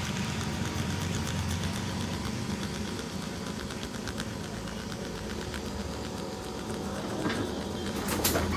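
Steady low rumble of street traffic, with scattered small taps and clicks over it and one louder sharp sound near the end.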